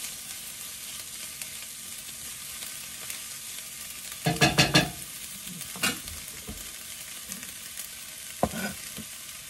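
Diced peppers and onions sizzling steadily in a frying pan. A quick run of four or five sharp knocks comes a little before the middle, and there are single knocks about six and eight and a half seconds in.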